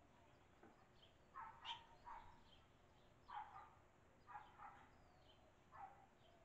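A dog barking faintly, several short barks in ones and twos over a few seconds, with faint bird chirps in the background.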